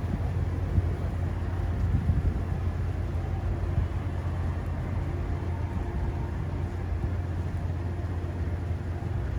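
Steady low rumble of a city street in a blizzard: strong wind buffeting the microphone, mixed with traffic noise.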